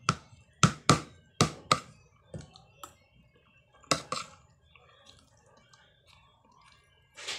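Metal spoon clinking and scraping against a plate while scooping rice. There is a quick run of sharp clinks in the first three seconds and two more about four seconds in.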